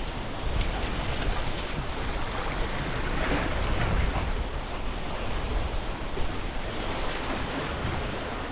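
Wind-driven lake waves washing against the shore, with wind gusting over the microphone as a steady low rumble; the wash swells and eases every second or so.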